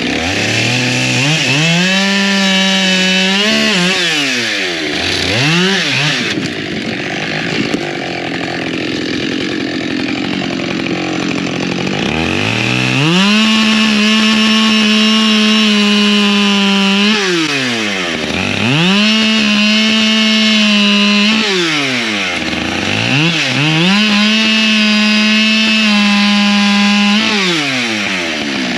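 Husqvarna chainsaw cutting firewood rounds. The engine revs up to full throttle and holds there through each cut, then drops back between cuts, about four times. There is a longer stretch of lower running in the first half.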